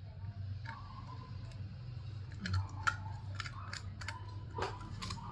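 Scattered light clicks and taps of handling over a steady low hum, with the sharpest clicks about halfway through and again near the end.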